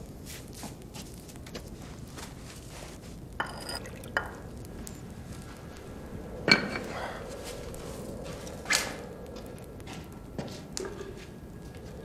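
Teacups and a teapot clinking as tea is poured and served: a few scattered sharp clinks, the loudest about six and a half seconds in with a short ring, another near nine seconds.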